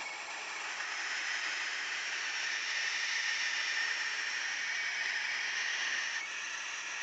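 Barn owls hissing, a continuous harsh breathy hiss: the defensive hissing of owls disturbed by a person at their box. It drops off a little about six seconds in.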